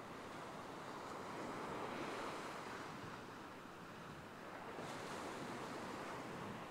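Surf washing onto a beach, a steady rush of waves that swells and eases.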